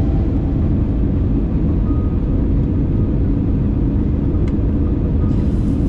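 Steady low rumble of airliner cabin noise from engines and airflow during the descent, heard from a window seat over the wing. Music begins to come back faintly near the end.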